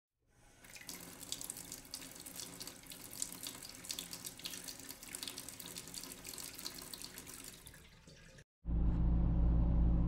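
Running water, like a tap or shower spray, under the title card for about eight seconds. It stops, and a louder steady low hum starts near the end.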